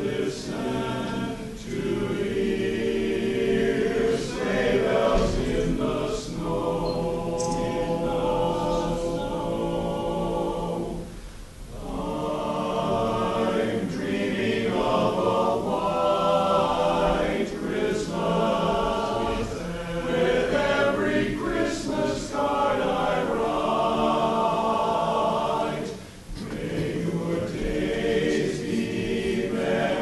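Men's barbershop chorus singing a cappella in close harmony, with a brief break between phrases about twelve seconds in and another a few seconds before the end.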